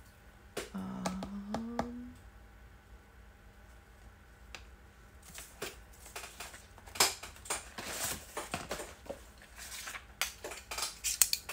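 Papers rustling and small craft tools being picked up and set down on a cutting mat, with irregular clicks and light clatter that start about five seconds in and are loudest a few seconds later. A short pitched voice-like sound comes about a second in.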